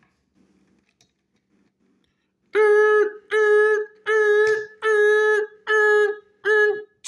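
A person's voice sounding six short, evenly spaced notes on one steady pitch, starting about two and a half seconds in after near silence.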